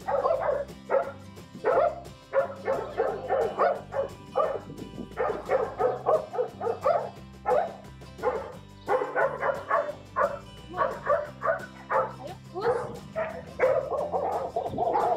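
Belgian Malinois yipping and whining in rapid short bursts, several a second, over background music.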